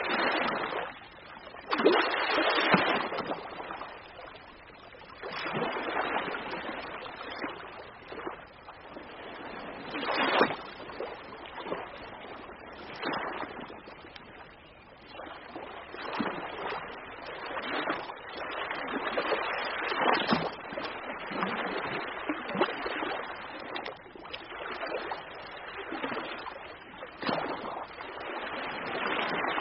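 Ocean waves breaking and washing on a shore, the surf swelling and falling away every few seconds.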